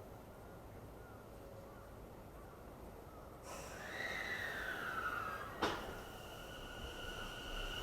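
Electric commuter train coming in: about halfway through, a high whine rises out of the background and slides down in pitch, followed by a single sharp click and then a steady high-pitched whine.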